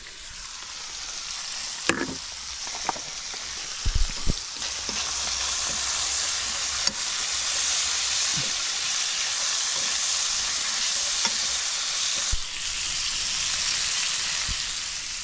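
Bacon, red pepper rings and kabanos sausage sizzling steadily in a frying pan, with a fork knocking against the pan a few times as the food is turned.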